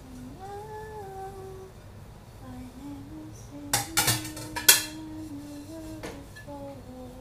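A woman humming a slow tune in long held notes. Dishes clink against each other a few times about four to five seconds in and once more at about six seconds.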